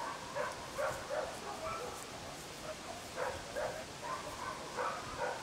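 A dog barking, short barks repeated several times.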